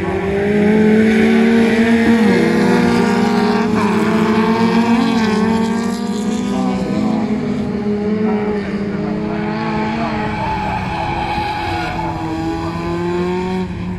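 Several small four-cylinder race cars' engines running at high revs together, their pitch rising and dipping slightly as they shift gear.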